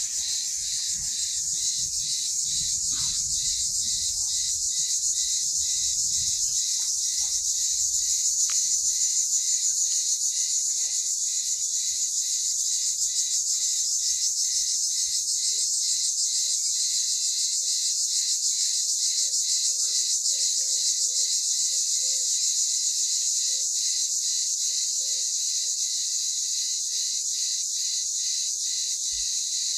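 Chorus of chirping insects, likely crickets: a steady high-pitched shrill with an even pulse about twice a second, with a few faint, lower chirps about two-thirds of the way through.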